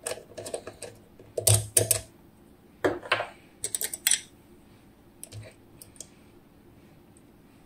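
Clusters of small metallic clicks and taps from handling a DOM IX Twido high-security lock and its picking tools as picking begins. The clicks are densest in the first four seconds, then a few faint ones follow.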